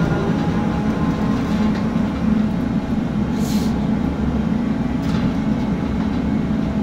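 Steady low drone of a mining dragline's machinery, heard inside the operator's cab as the machine swings with its bucket hanging from the ropes. A short hiss comes about three and a half seconds in.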